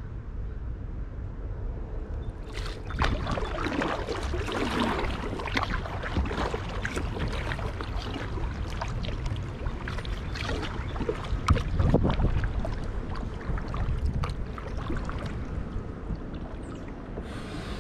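Kayak paddle strokes dipping into the water, with repeated splashing and dripping off the blades. They start a couple of seconds in, over a steady low rumble.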